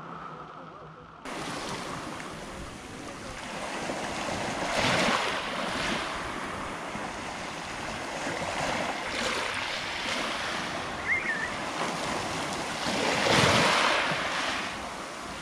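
Black Sea surf washing onto the beach, with waves swelling loudest about five seconds in and again near the end, and wind buffeting the microphone.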